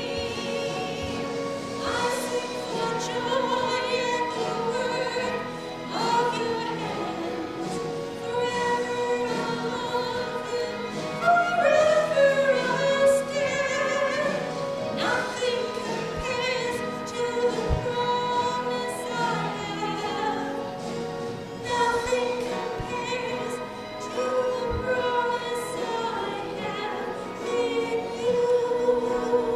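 Sacred music: singing with vibrato on held notes over instrumental accompaniment, such as a hymn or anthem.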